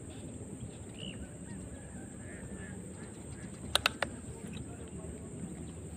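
Outdoor ambience by still water, with a steady high hiss and a few faint bird chirps. About four seconds in come three sharp clicks in quick succession.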